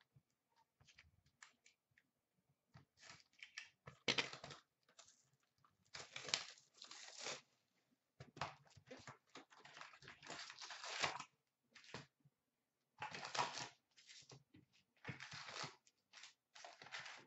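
13-14 Upper Deck Series 2 hockey card pack wrappers being torn open and crinkled in irregular crackling bursts, with cards shuffled between them.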